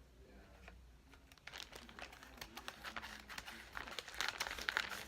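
Packaging crinkling and rustling as a parcel is opened by hand, faint at first, then busier and louder from about a second and a half in.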